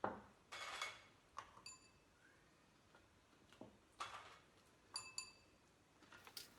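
Kitchen dishware being handled: a knock, two short swishes, and a few light clinks that ring briefly, like a spoon or biscuit tapping a glass dish.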